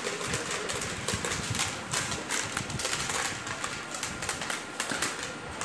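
Dried corn kernels being stripped off the cobs by hand, rattling into a plastic tub in quick, irregular clicks.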